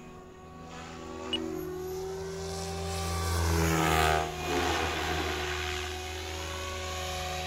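SAB Goblin 500 electric RC helicopter flying: a steady rotor hum with a whine above it, growing louder to a close pass about four seconds in, then easing off.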